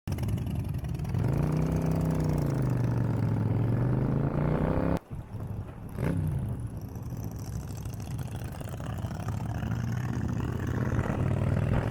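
A vehicle engine running under way, its pitch rising and then easing back, with a brief break about five seconds in. A quick sharp rev blip follows about a second later, then steady running that climbs a little near the end.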